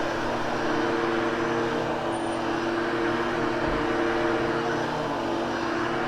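Hoover HushTone upright vacuum cleaner running steadily as it is pushed over carpet, a constant rushing noise with a low motor hum.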